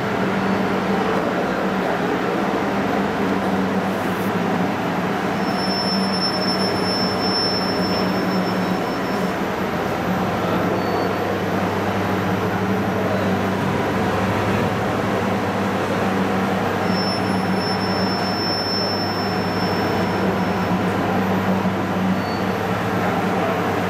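A roll-to-roll heat transfer printing machine running with a steady hum and mechanical rumble as its heated drum and rollers turn. A thin high whine comes in twice for a few seconds.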